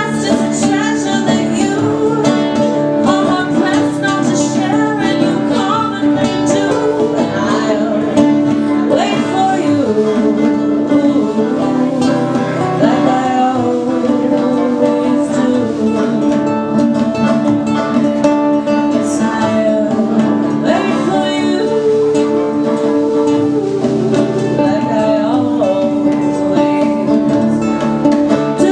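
Live acoustic folk song: a woman singing over a strummed nylon-string classical guitar, with a banjo picking along.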